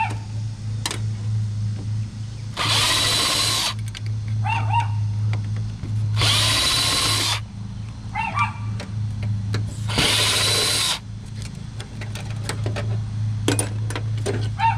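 Cordless drill-driver spinning in three bursts of about a second each, roughly four seconds apart, backing screws out of a flat-screen TV's sheet-metal back frame. A steady low hum runs underneath, with a few small clicks near the end.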